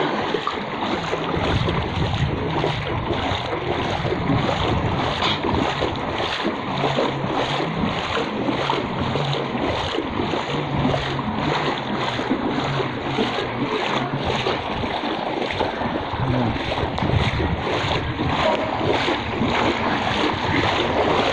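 Footsteps wading through floodwater: a steady sloshing and splashing with a stroke about twice a second.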